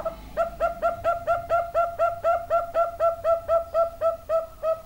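A young zebra dove (perkutut) calling a long run of short, evenly spaced cooing notes, about four or five a second. Each note slides quickly up into the same steady pitch.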